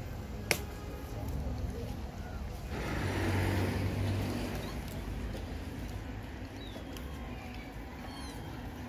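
Steady low outdoor rumble that swells for a second or two about three seconds in, with one sharp click just after the start.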